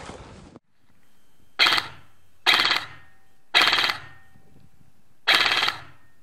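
Airsoft electric rifle firing four short full-auto bursts, each about half a second long, spread over about four seconds.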